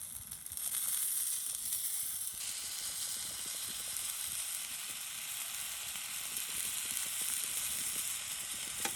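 A pot pie sizzling as it cooks on top of a wood stove, a steady sizzle that swells about a second in and then holds.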